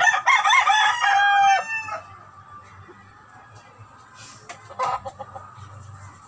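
A rooster crowing once, a loud crow lasting about two seconds that ends on a drawn-out note. A few faint knocks follow later on.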